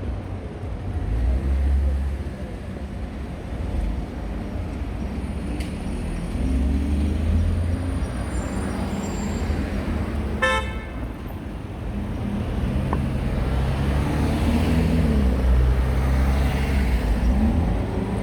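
Urban road traffic: car engines running and passing in a steady low rumble, with a short car horn toot about ten seconds in.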